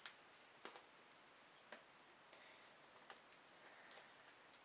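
Near silence, with a handful of faint, irregular clicks from metal eyelet-setting pliers and an eyelet being handled and positioned on the album's binding.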